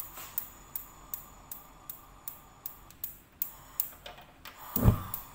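Gas stove igniter clicking steadily, a little under three sharp clicks a second, with a dull thump near the end.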